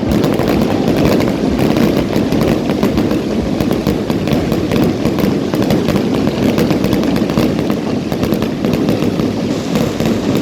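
Fireworks going off in a dense, continuous barrage of rapid pops and crackles, with no single standout bang.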